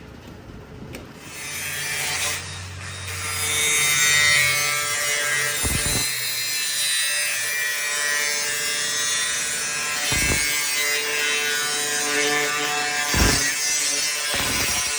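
A power tool cutting sheet metal on a vehicle body: a loud, steady rasping grind that starts about a second in, with a few low thumps.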